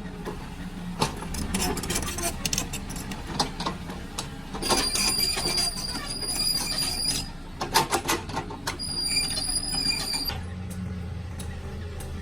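An excavator's diesel engine runs steadily while stones knock and clatter against each other and the bucket. A high, steady metallic squeal comes twice: a long one about five seconds in, and a shorter one near nine seconds.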